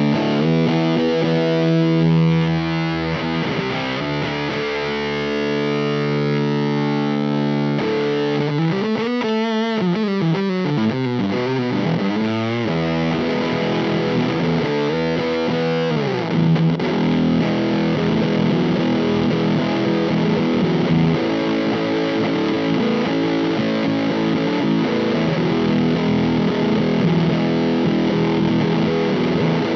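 Electric guitar played through a Teisco Fuzz pedal set to its octave mode, giving a thick octave-fuzz tone. Held notes ring out, then the pitch wavers and bends about nine seconds in, followed by steady, denser fuzz playing.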